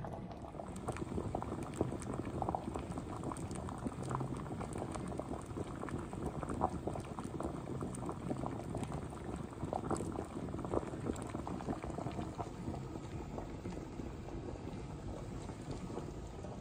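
A saucepan of potatoes at a rolling boil: steady bubbling with many small pops.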